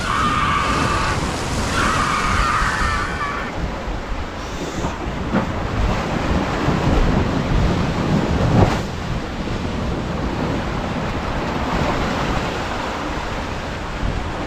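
Ocean surf surging over and crashing against shoreline rocks, with wind buffeting the microphone and a heavier wave hit a little past the middle. A high, drawn-out cry sounds over it in the first few seconds.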